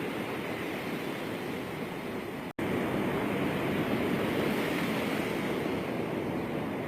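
Ocean surf washing onto a sandy beach, a steady rushing sound. It cuts out for an instant about two and a half seconds in, then resumes slightly louder.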